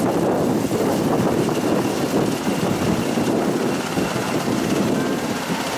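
UH-60 Black Hawk helicopter passing low overhead: loud rotor and twin-turboshaft engine noise, easing slightly near the end as it moves away.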